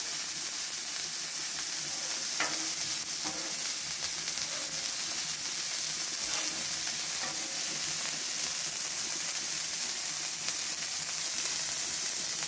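Beef smash burger patties frying on a hot flat-top griddle: a steady sizzle with a few faint crackles of spitting fat.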